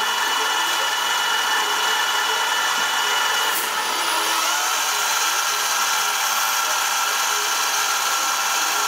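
Small metal lathe running at a steady speed, its motor and gears giving a whine, as the tool bit faces the end of metal bar stock spinning in the chuck. The whine shifts slightly about three and a half seconds in.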